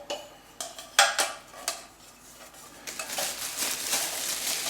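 Metal clinks and knocks of a two-piece military cook set, the cooking cup and its stove base, being handled and fitted together, each knock ringing briefly. From about three seconds in, a steady rustle takes over.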